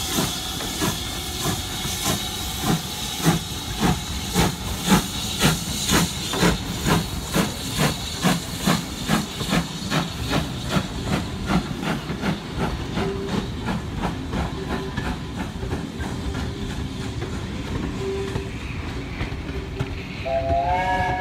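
Steam locomotive pulling away under power: its exhaust chuffs in sharp, even beats that quicken from about two to about four a second and grow fainter as the train draws off, over a steady hiss of steam. A whistle sounds briefly near the end.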